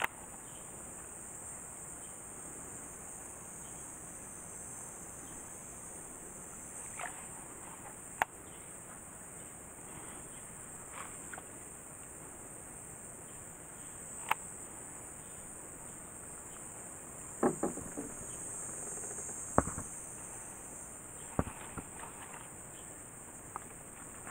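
Cicadas in the lakeside trees, a steady high-pitched drone, broken by a handful of sharp knocks and clicks, the loudest coming in the second half.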